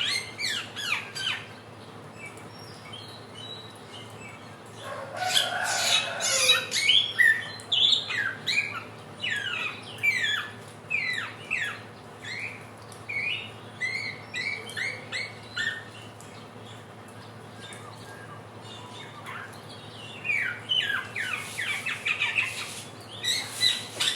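Samyong (helmeted friarbird) singing its trotolan song: bouts of quick, sharp, downward-sliding notes with pauses between them. A louder, rougher stretch comes about five seconds in.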